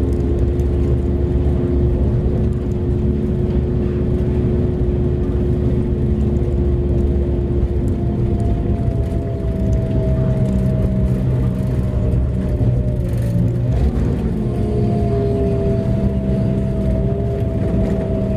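Mining haul truck's diesel engine running under way, heard from inside the cab as a loud steady low rumble. Steady whining tones ride over it and shift in pitch about halfway through and again a few seconds later.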